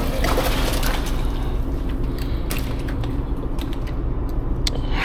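Fishing reel being wound, a run of small mechanical clicks and creaks, over a steady low rumble.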